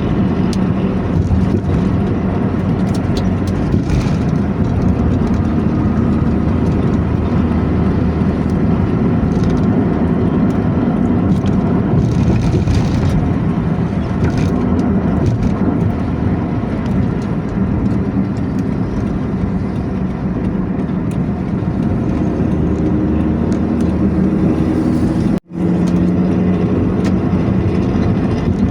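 Intercity bus running steadily at speed, its engine and exhaust a continuous low drone over road noise. The sound cuts out for an instant near the end.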